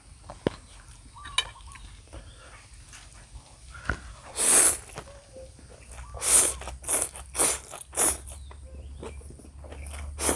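Close-up crunchy chewing and biting, most likely mature coconut flesh: a few faint clicks, then from about four seconds in a run of short, loud crunches, roughly two a second.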